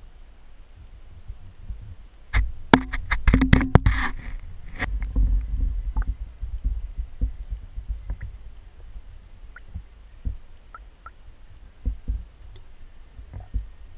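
Water splashing and sloshing as a hand net is worked through shallow lake water while netting crawfish, with a burst of sharp clattering knocks from about two and a half to four and a half seconds in, then scattered faint knocks.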